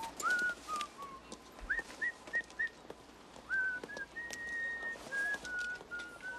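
A person whistling an idle tune: a string of short single notes, several sliding up into pitch and a few held longer.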